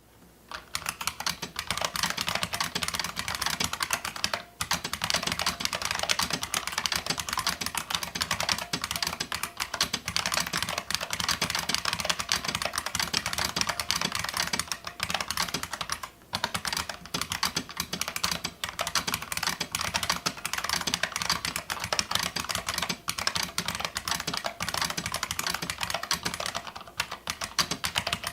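Fast continuous typing on an IBM Model M Space Saving Keyboard, its buckling-spring keys clicking sharply, with a few brief pauses. The keyboard has been bolt-modded.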